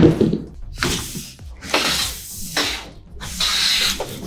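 A Q Cells G6+ solar panel being slid out of its upright cardboard shipping box, its frame scraping and rubbing against the cardboard in three long drags, after a thump at the start.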